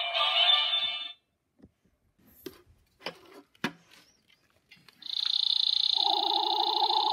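An animated Spikey clown doll's electronic song cuts off about a second in, followed by a few faint handling clicks and knocks. About five seconds in, a toy cotton candy gun starts its electronic sound effect: a steady high tone over a rapidly pulsing lower buzz.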